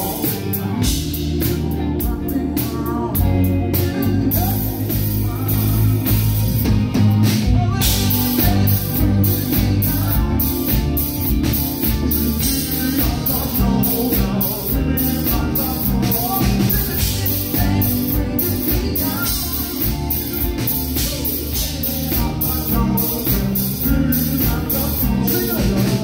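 Live band playing a song through the PA: electric guitars, keyboards and drums with a steady beat, and a male lead vocal singing over them.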